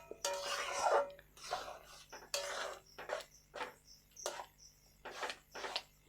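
Spoon stirring and scraping a thick milk-and-noodle pudding in a cooking pan: a run of short, irregular scrapes, about one or two a second.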